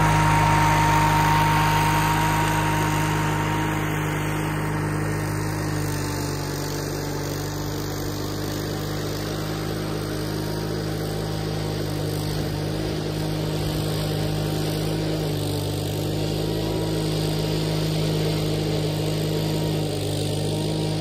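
Case 1816C skid steer's small engine running steadily, with an even low hum throughout.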